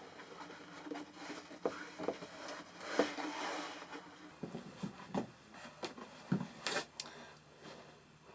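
A felt sheet rubbing and being pressed against the wooden shelf of a machinist's tool chest during a dry fit. There are scattered light taps and knocks, and a short stretch of rubbing about three seconds in.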